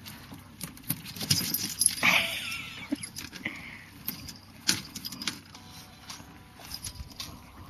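Scattered light taps and clicks on a boat deck from a Yorkshire terrier's paws and a small fish being nosed and dropped. A brief, wavering, higher sound comes about two seconds in.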